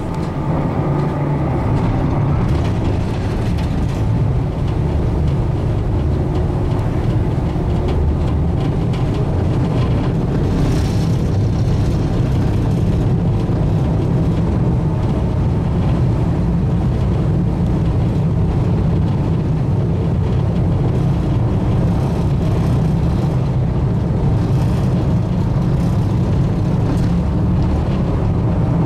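MV Argyll Flyer fast passenger ferry's engines running with a steady low drone as she comes in slowly to the pier, heard from the open upper deck.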